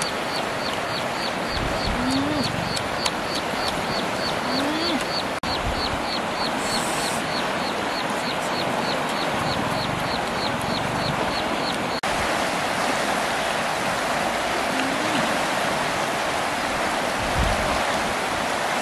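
River water rushing steadily over rocks. A rapid, even chirping, about four a second, runs over it until about two-thirds of the way through, and a few short, low rising calls sound now and then.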